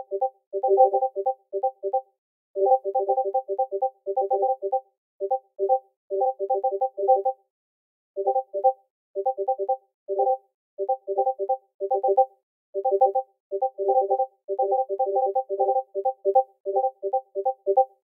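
Discord message notification pings repeated over and over, dozens of short pitched blips in quick, overlapping clusters. There is a short break of about a second around seven seconds in before the pings resume.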